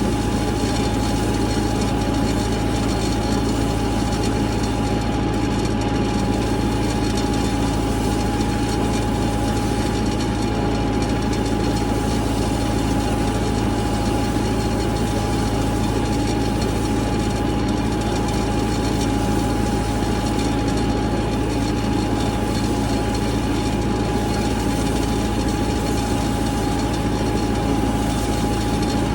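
Tractor engine running at a steady speed while pulling a seed drill across the field, with a constant whine over the drone.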